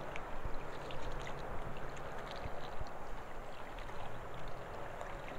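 Steady rushing noise of wind on the microphone, with scattered faint light ticks.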